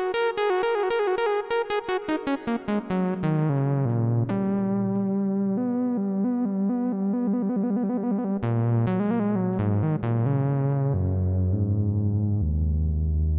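Yamaha Reface DX FM synthesizer playing a demo patch. A fast run of short notes falls in pitch over the first few seconds, then gives way to held notes over a low bass line, with another brief flurry of short notes partway through.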